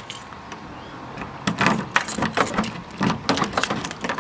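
Keys jangling in a hand, in a few short rattling bursts starting about a second and a half in.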